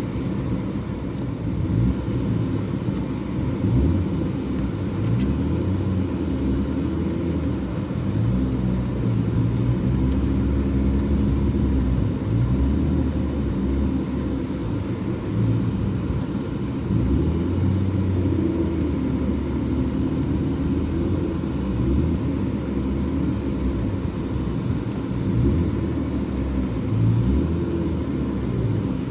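BMW E36 car being driven: steady engine and road noise, with the engine note shifting up and down a little.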